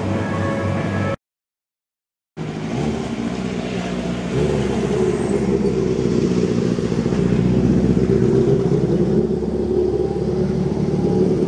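Music that cuts off about a second in, then after a second of silence the steady running noise of a vehicle, a little louder from about four seconds in.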